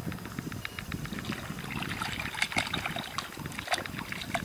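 Seawater lapping and trickling at the surface, with many small irregular splashes and drips.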